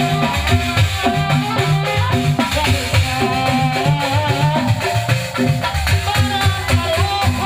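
Live Sundanese drum-and-gong ensemble music: a kendang barrel drum struck by hand in a busy, steady rhythm, with a small hand-held gong hit with a stick and shaking rattle-like percussion. Above the drums runs a wavering melody line that bends up and down.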